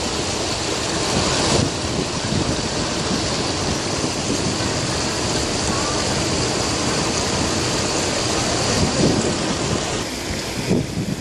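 Steady outdoor crowd hubbub: a dense, even wash of noise with faint, indistinct voices in it.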